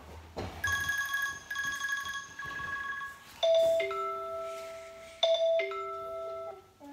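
iPhone ringtones played one after another. First comes a rapidly repeating bell-like ring for about two and a half seconds. Then, about three and a half seconds in, a different ringtone starts: a short phrase of clear electronic tones, played twice.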